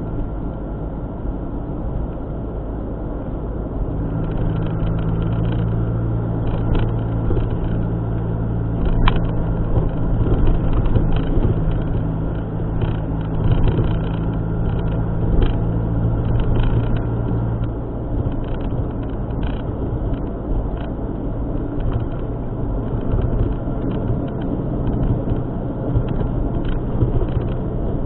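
Car driving along a road: steady engine and road noise. A stronger engine hum comes in about four seconds in and eases off around eighteen seconds, with scattered light knocks throughout.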